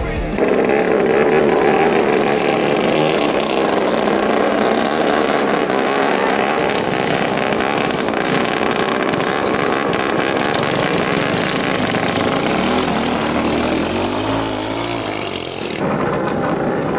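BT9 two-ring class longtail racing boat engines running flat out, a dense steady drone mixed with water noise. It cuts off abruptly near the end.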